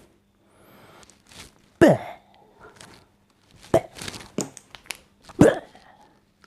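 Three loud, sharp knocks about two seconds apart, each with a short ring after it, with a few lighter clicks between them.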